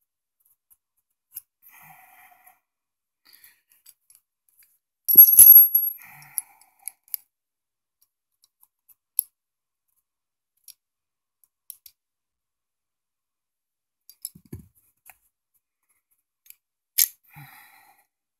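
Small metal parts of an AR-15's nickel boron bolt carrier group clicking and clinking as it is taken apart by hand. There is one loud, sharp metal clink about five seconds in that rings briefly, and a few fainter clicks are spread through the rest.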